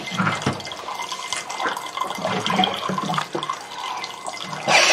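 Water running from a water dispenser's tap into a glass while someone drinks it off through a long straw. A short, loud rush of noise near the end.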